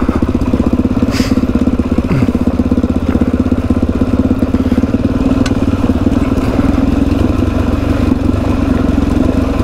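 Suzuki DR-Z400 trail bike's single-cylinder four-stroke engine running steadily at an even pitch, with a few light clicks over it.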